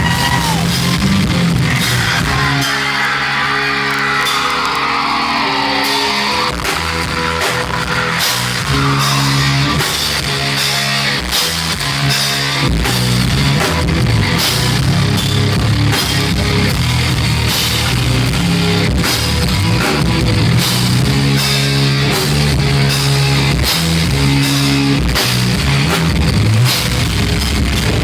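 Heavy metal band playing live: distorted electric guitars riffing over a fast drum kit, with a falling sweep in pitch about two to four seconds in.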